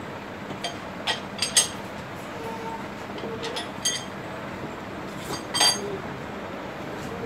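Hand tools clinking and knocking against the metal lathe and its steel shaft workpiece. There is a handful of sharp, briefly ringing metal strikes, with the loudest about a second and a half in and another a few seconds later.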